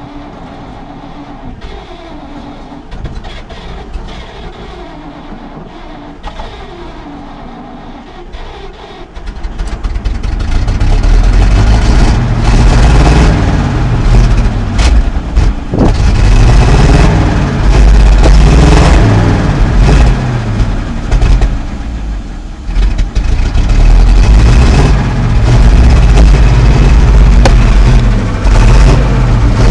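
ZIL-130 V8 petrol engine of a ZIL-441510 truck, heard from the cab on its first run after standing unused for twenty years. It runs quietly at first, then from about ten seconds in is revved up and down again and again, much louder.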